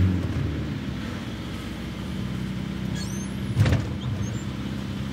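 Van engine and road noise heard from inside the cab while driving, a steady low hum. About three and a half seconds in, a short high squeak is followed by a single knock.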